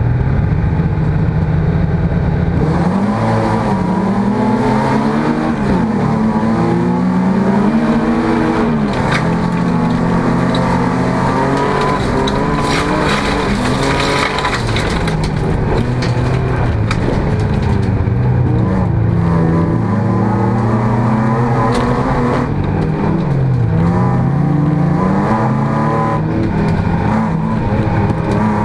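A jokkis race car's engine heard from inside the stripped cabin, revving hard. It is held at steady revs for about the first three seconds, then climbs and drops again and again through gear changes and corners, with scattered sharp clicks and clatter near the middle.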